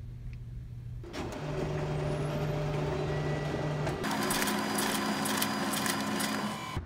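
Office laser printer running a print job and feeding sheets into its output tray. A steady motor hum starts about a second in, and from about four seconds in it grows louder and busier with rapid clicking of the paper handling.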